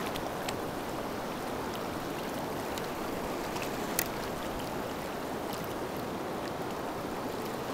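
River current rushing steadily through a riffle, heard with the microphone close to the water surface, with a faint click about four seconds in.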